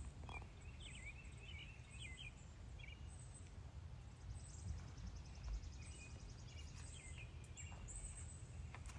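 Faint garden ambience: small birds chirping in short twittering calls during the first few seconds, a fast high trill about halfway through, over a low steady rumble.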